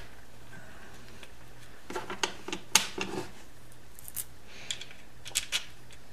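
Scattered small metallic clicks and taps as a bolt and flat washer are handled and started by hand into the engine case, over a faint steady hum.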